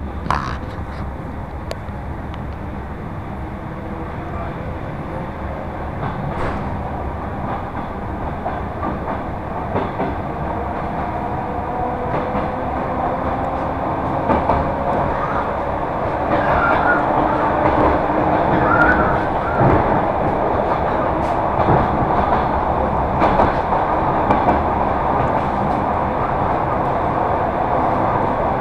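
Electric suburban train (elektrichka) heard from inside a carriage while running along the line: a steady wheel-and-rail rumble with occasional clacks and a faint whine that rises slowly in pitch. The whole sound grows gradually louder.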